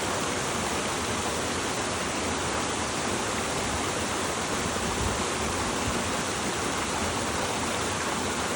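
Steady rush of running spring water, an even splashing flow with no pauses.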